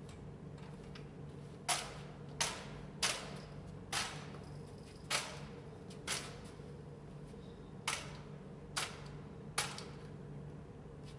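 Gunfire from other shooters on the range: about nine sharp shots at irregular spacing, each with a short echo.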